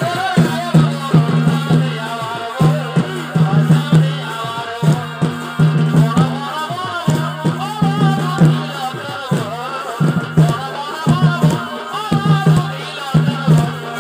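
Purulia Chhau dance music: a shehnai playing a wavering melody over fast, busy dhol and dhamsa drumming, with a steady low drone underneath.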